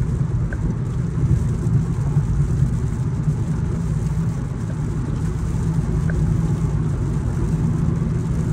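Steady road and engine noise heard inside a moving car's cabin at highway speed, with heavy rain hitting the windscreen and body.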